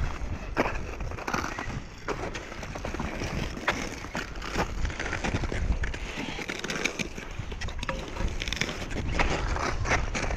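Climbers' crampon footsteps crunching on glacier snow and ice, sharp irregular crunches roughly once a second, over a low rumble of wind on the microphone.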